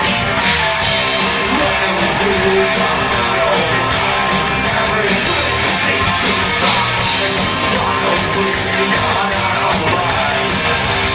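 A rock band playing live: loud distorted electric guitars, bass and drums, with shouted vocals.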